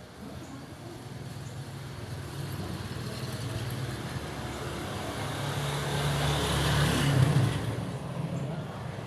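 A motor vehicle passing by: its engine and tyre noise grow steadily louder to a peak about seven seconds in, then fade.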